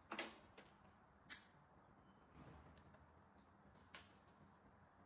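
Near silence: faint room tone with three short, sharp clicks, one near the start, one just over a second in and one about four seconds in.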